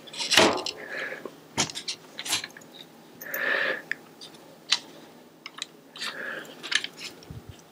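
Scattered clicks, taps and light knocks of bicycle parts being handled as a rear hub-motor wheel is fitted into the frame and past the V-brakes, with a few short rustles between them.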